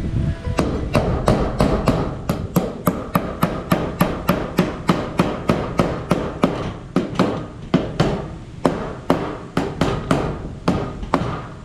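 Hammer driving nails with quick, even blows, about three a second, stopping near the end.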